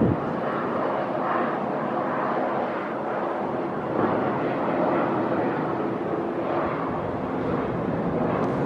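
A large aerial firework shell bursts with one sharp boom at the start, followed by a long, steady rumbling noise.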